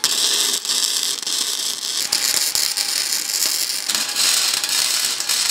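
Electric arc welding with a Weldclass MST175 welder: the arc crackles steadily, with slight changes about two and four seconds in.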